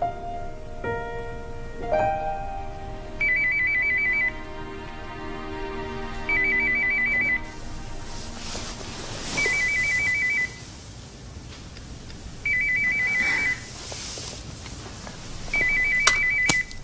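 A mobile phone ringing with a trilling electronic ring, about a second on and two off, five times. Soft piano music fades out during the first few seconds, and two sharp clicks come during the last ring.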